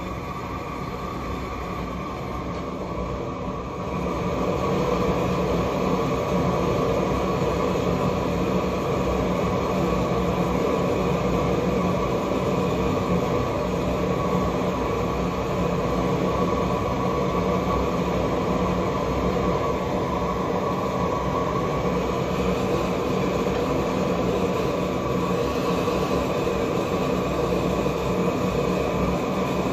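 A large propane torch burning with a steady roar as it heats a steel branding stamp for marking tools. The roar grows louder about four seconds in.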